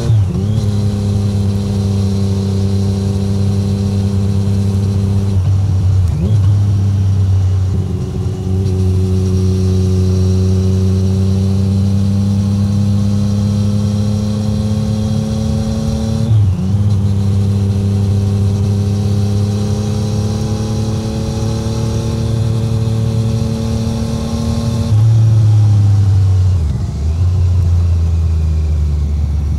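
2017 Triumph Street Triple 765R's inline three-cylinder engine through an SC-Project SC1-R titanium exhaust, exhaust note only with no wind noise, pulling at moderate revs. The note climbs slowly under light throttle and breaks briefly at gear changes about 6 and 16 seconds in, then swells louder near the end before dropping in pitch as the throttle closes.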